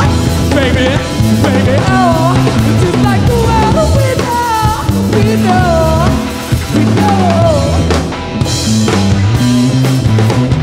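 Live rock band of electric guitar, electric bass and drum kit playing an instrumental passage, the lead line swooping and bending in pitch over a steady bass and drums. Near the end the cymbals grow brighter after a brief break.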